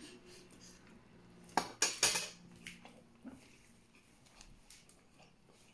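Fingers picking food off a ceramic plate during a meal eaten by hand: three quick clinks and scrapes on the plate about a second and a half in, then a few fainter ticks.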